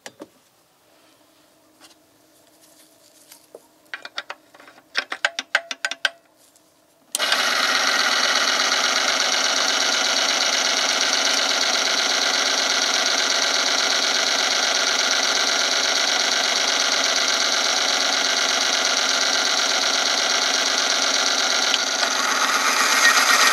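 Oil film strength test machine: a few clicks and knocks as it is set up, then about seven seconds in its electric motor starts and runs steadily, the spinning shaft grinding against the steel sample in hot oil under the lever's load. Near the end a weight is hung on the lever and the grinding grows louder and harsher as the load rises.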